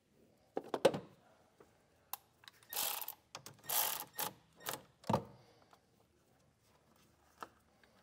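Milwaukee cordless ratchet running in short bursts, the two longest about three and four seconds in, as it runs a nut down onto a battery terminal post. A few clicks and knocks come about a second in.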